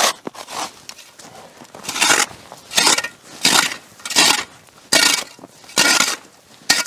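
Footsteps crunching in snow on a frozen lake, a short crunch at each step, somewhat unevenly spaced at about one step a second.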